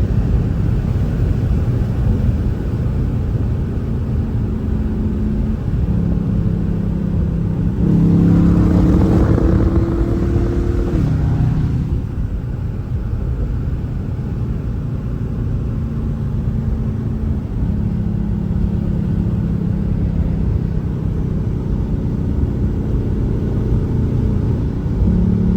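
Dodge Charger's Hemi V8 running loud through an exhaust with the rear mufflers and mid resonators cut out, pulling hard under acceleration. The engine note rises and is loudest about eight to eleven seconds in, drops suddenly around twelve seconds as the throttle eases or the gear changes, then carries on steadily.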